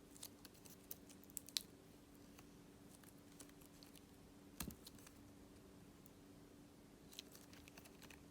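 Hand gum slime being handled in the fingers, giving sparse small pops and clicks: a cluster in the first second and a half, one sharper pop in the middle, and a few more near the end, over a low steady hum.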